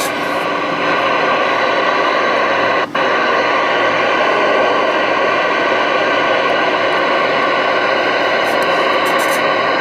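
Stryker SR-655HPC radio receiving on the air, its speaker giving a loud, steady rush of band static with a brief break about three seconds in.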